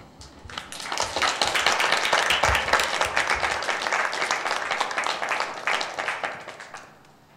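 Audience applauding: many hands clapping, swelling about half a second in, holding steady, then dying away near the end.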